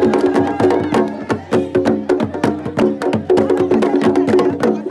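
Live traditional dance music: fast, sharp percussion strikes, several a second, over a melody of held, stepping notes.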